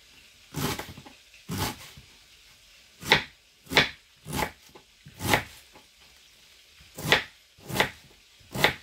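A kitchen knife chopping on a cutting board: about nine short, sharp strokes at an uneven pace, roughly one every half second to second.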